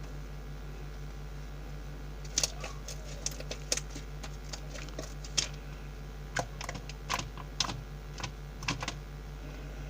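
Thick slime with foam beads being poked and squeezed by hand, making irregular sharp clicks and pops that start about two seconds in. A steady low hum runs underneath.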